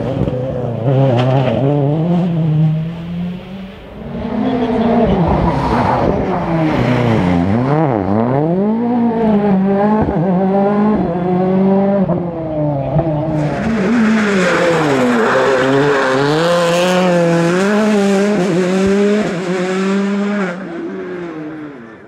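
A 2015 World Rally Car's 1.6-litre turbocharged four-cylinder engine at stage pace. The engine note climbs hard, drops in steps at each gear change, and dips and rises again as the car brakes for bends and powers out of them. It fades away near the end.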